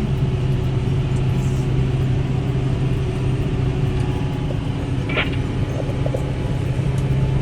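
Tractor engine running at a steady speed, a constant low hum. A brief higher sound cuts in about five seconds in.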